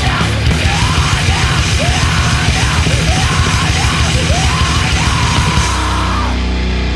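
Loud, fast heavy punk/metal band music: distorted guitars, rapid pounding drums and yelled vocals. About five and a half seconds in, the drums and vocals stop and a distorted chord rings on.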